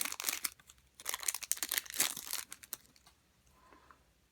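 Foil wrapper of a baseball card pack crinkling and tearing as it is opened by hand, in two rustling stretches that stop almost three seconds in.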